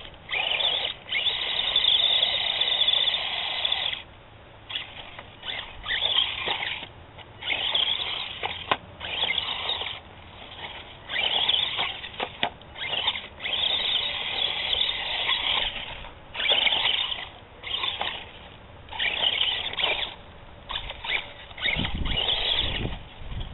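Electric motor and geartrain of a 1/18-scale HPI Mini Recon RC truck whining in short repeated bursts as the throttle is pulsed on and off, with a few sharp clicks and a brief low rumble near the end.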